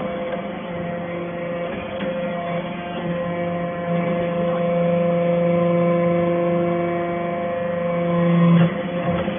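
Hydraulic metal-shavings baler running, its pump and motor giving a steady hum made of several held tones. The hum grows louder in the middle and drops off abruptly near the end.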